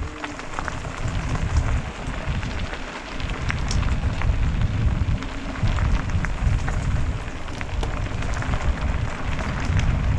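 Wind rumbling over the microphone and tyres crunching on a gravel track as an electric mountain bike rides along at speed, with scattered small clicks and rattles from the stones and the bike.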